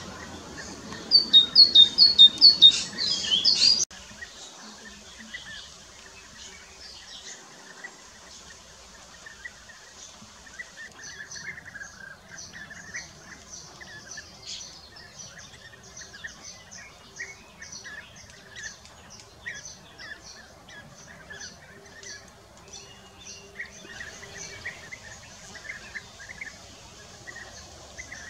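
A loud run of rapid, high bird notes in the first few seconds cuts off suddenly. After that, European bee-eaters call over and over in short, repeated calls from about ten seconds in.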